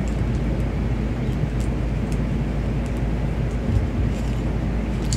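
Steady low background hum with a few faint, light clicks as a small keychain charm is handled and pushed together.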